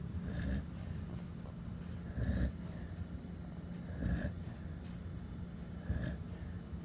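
Snoring: four snores in a steady rhythm, about one every two seconds.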